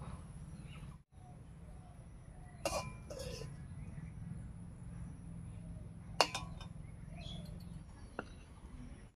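A metal spoon clinking against a plate a few times, sharpest about six seconds in, over a steady low hum and faint bird chirps.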